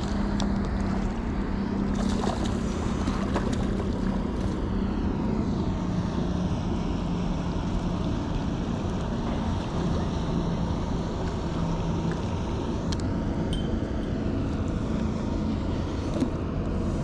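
Steady wind noise on the microphone over open lake water lapping at a pier wall, with a low steady hum through roughly the first two-thirds.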